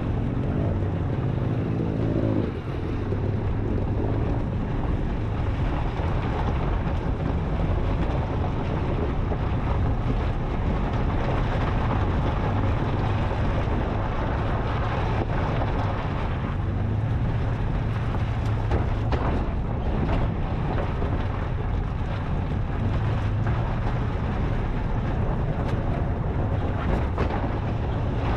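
Toyota FJ Cruiser driving slowly over a rough dirt trail: the engine running under a steady low hum, with tyre and road noise and wind on the microphone.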